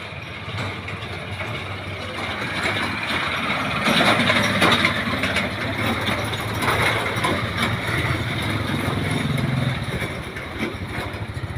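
A motor vehicle's engine running, with a steady low hum that gets louder about four seconds in.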